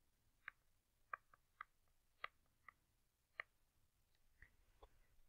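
Faint, irregular clicks, roughly two a second, of a stylus tapping on a tablet as words are handwritten, over near silence.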